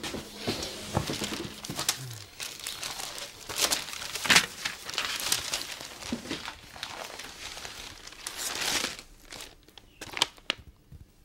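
Glossy magazine pages rustling and crinkling as they are handled and leafed through, in irregular rustles that thin out near the end.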